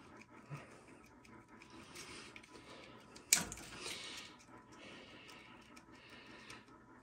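Faint handling of a furnace control transformer and its wires, with small ticks and one sharp click a little over three seconds in, as the wire connectors are worked off the transformer's terminals.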